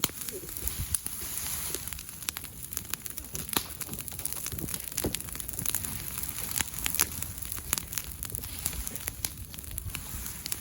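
Open fire crackling, with irregular sharp pops and snaps throughout.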